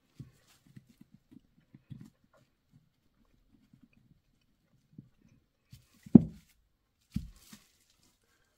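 A small die-cast carburetor handled in gloved hands over bubble wrap, with soft scattered knocks and rustles. Two louder knocks come about six and seven seconds in as the carburetor is laid down on the bench.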